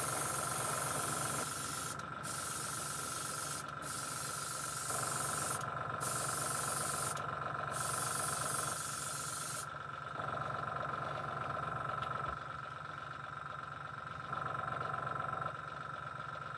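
Airbrush spraying paint in a series of short hissing bursts with brief pauses between them, stopping about ten seconds in. A steady low hum continues underneath.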